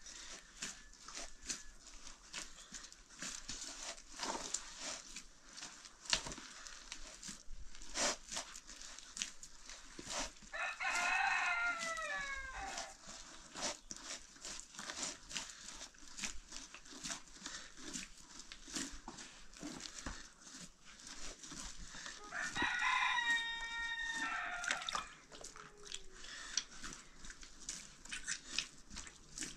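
A rooster crowing twice, about ten seconds apart, each crow lasting two to three seconds, over a steady scatter of light clicks and taps.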